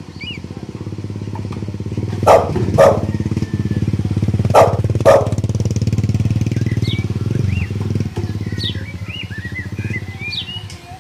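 A motor engine runs steadily, growing louder and then fading. About two seconds in and again about four and a half seconds in come four loud short knocks in two quick pairs. Birds chirp faintly.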